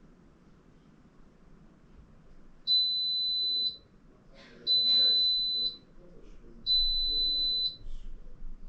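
Electrolux EW6S404WU washing machine sounding three long, high beeps of one pitch, each about a second long and about two seconds apart: the end-of-programme signal that the wash cycle has finished. Faint rustling or low voice sounds come between the beeps.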